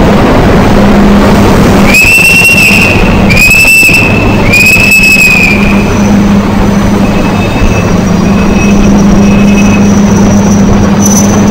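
Three short, shrill whistle blasts, each about a second long, over the steady rumble and hum of a passenger train at a station platform.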